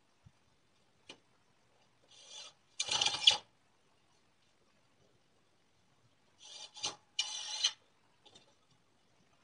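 Two short rasping bursts, each under a second and a half, as the pipe clamps on a glued-up wooden panel are worked, with a couple of small clicks between them.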